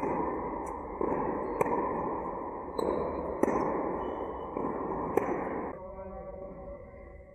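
Tennis ball struck by a racket, four sharp hits about one and a half to two seconds apart, over a steady background hiss.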